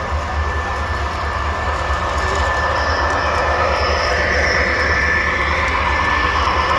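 Model train running past on three-rail track, a pair of diesel locomotives pulling freight cars: a steady whine and rolling wheel noise that grows louder from about two seconds in as the locomotives come close.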